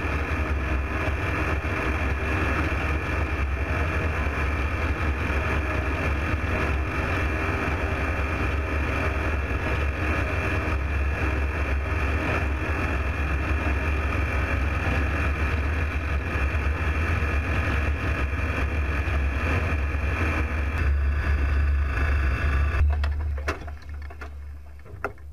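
Light aeroplane's engine and propeller running steadily in flight, with a steady drone over rushing air; it fades away near the end.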